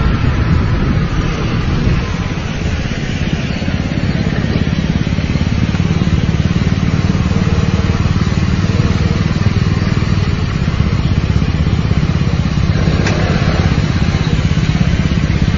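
Small motor scooter engines idling in street traffic: a steady low rumble, a little louder for the first couple of seconds.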